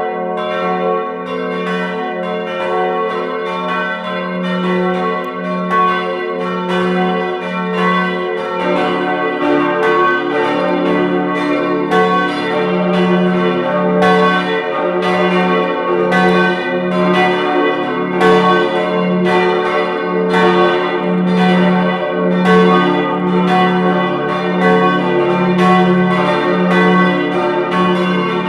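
Four-bell church peal, tuned d', f-sharp', a' and b', with the swinging bells striking over one another in an irregular, overlapping clang. A lower tone joins about eight seconds in, filling out the sound.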